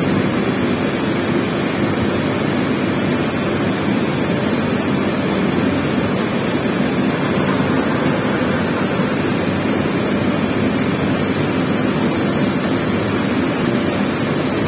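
Rotogravure printing press running at production speed: a loud, steady, unbroken machine noise.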